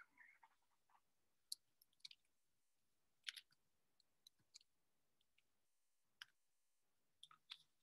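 Near silence with a dozen or so faint, irregular clicks and ticks scattered through it.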